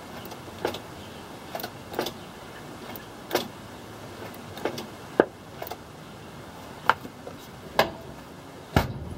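A series of sharp clicks and taps at uneven intervals, roughly one a second, over a faint steady hiss.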